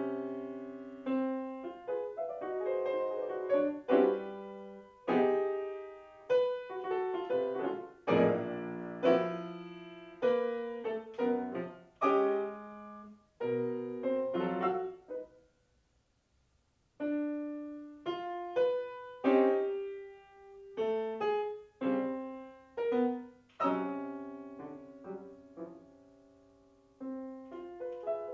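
Solo grand piano playing chords and single notes, each struck and left to ring and die away. Midway the playing stops for about a second and a half, then resumes.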